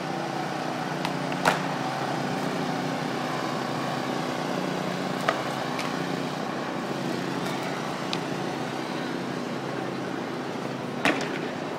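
Skateboard wheels rolling on smooth concrete, a steady rumble, with three sharp clacks of the board over joints or bumps, at about a second and a half in, past five seconds, and near the end.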